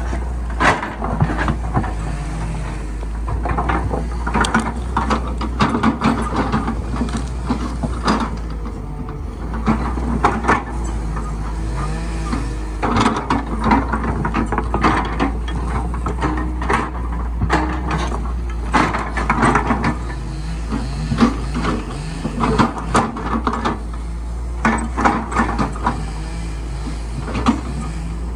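Excavator working in soil: its diesel engine runs steadily, its note rising and falling as the hydraulics are worked, with frequent sharp knocks and clatters from the bucket and arm.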